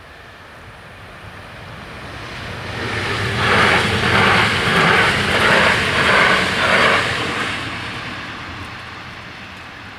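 Bombardier Talent 2 electric multiple unit passing at speed over a level crossing: the sound builds up, is loudest for about four seconds with a rhythmic pulsing as its wheels go by, then fades away.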